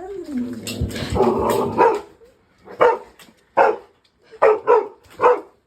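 A dog gives a long, wavering call for about two seconds, then barks five short times, roughly one every half second to second.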